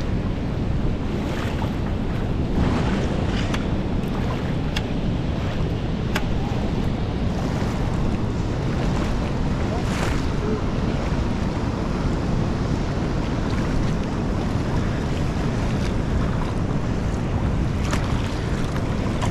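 Fast river current rushing steadily, with wind buffeting the microphone as a low rumble. A few short sharp ticks stand out, the clearest about six and ten seconds in.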